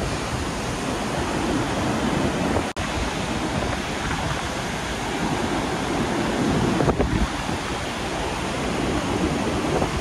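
Rhine Falls' water crashing down in a steady, full rushing noise, with wind buffeting the microphone. The sound cuts out for an instant about three seconds in.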